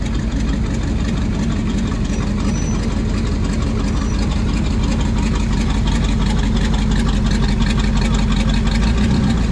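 A car engine idling steadily close by: a loud, even, low exhaust note.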